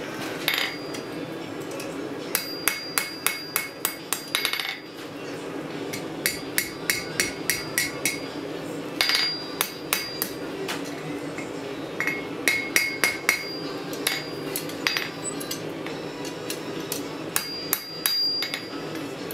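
Blacksmith's hand hammer striking red-hot steel on an anvil while forming an S-hook: several runs of quick ringing blows separated by short pauses, with the anvil ringing after each strike, over a steady background hum.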